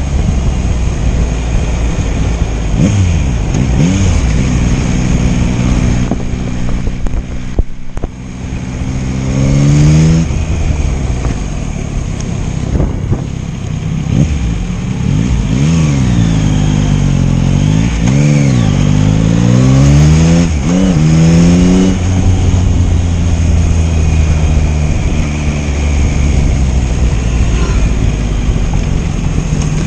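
Yamaha MT-09's inline-three engine on the move, revving up and easing off repeatedly, its pitch climbing and dropping back several times, with a constant rush of wind.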